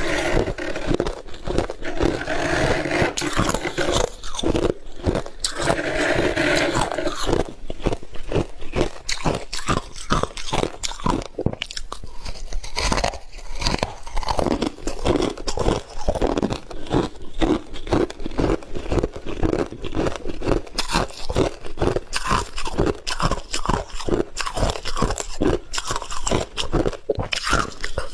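Close-miked biting and chewing of squeaky freezer frost: a dense, unbroken run of crunches, many each second.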